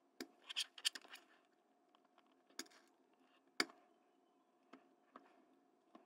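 Faint scrapes and clicks of a smooth screwdriver shaft being drawn along the insulated copper conductors of shielded Cat6A cable to straighten them: a quick cluster in the first second, then single ticks, the sharpest about three and a half seconds in.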